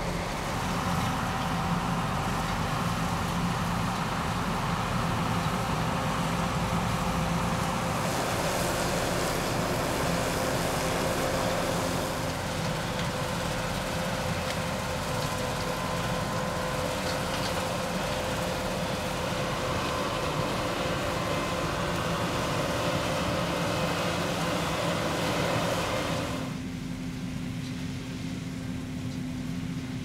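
A John Deere combine harvesting soybeans, its engine and threshing machinery running with a steady drone and a few held whining tones. Near the end it turns quieter and duller.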